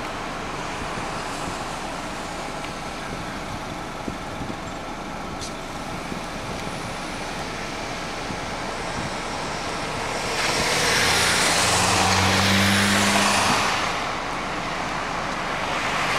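Street traffic: a steady roadway hum, with a vehicle passing close in the middle, its engine drone and tyre noise swelling for about three seconds and then fading. Another vehicle approaches near the end.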